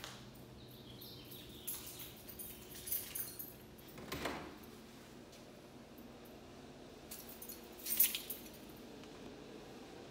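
Keys jangling in short bursts with scattered clicks, the loudest jingle about eight seconds in, as the apartment's front door is unlocked.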